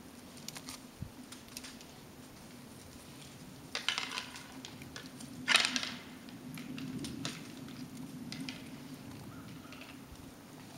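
Crunching and clicking on crusted snow as deer feed and move about, with two louder crackly crunches about four and five and a half seconds in, over a low steady hum.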